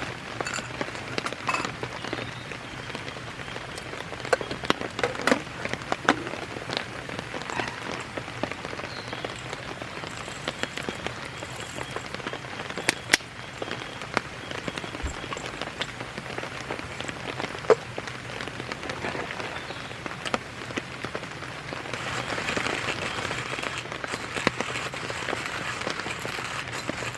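Steady rain pattering down, with many scattered louder drips, growing a little heavier near the end.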